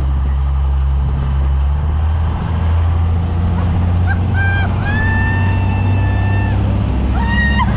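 A motorboat's engine runs steadily under way, with a constant low drone. In the second half, high, drawn-out calls rise above it.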